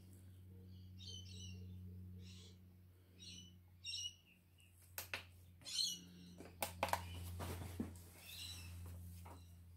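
Faint bird chirps, several short calls scattered through, over a low steady hum. A few sharp clicks come around the middle as the sharpness tester and knife jig are handled.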